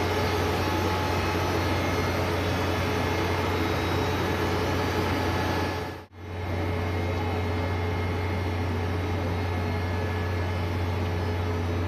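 Steady low hum of idling diesel trains standing at a station platform: an even drone with faint steady tones above it. It drops out briefly about six seconds in, then resumes unchanged.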